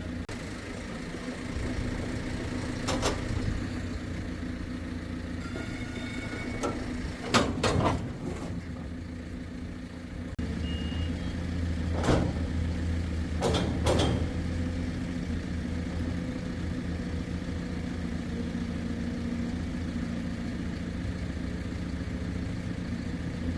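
Heavy engine idling steadily with a low hum, broken by sharp knocks or clanks: one about three seconds in, a loud double strike about seven and a half seconds in, and more around twelve to fourteen seconds in.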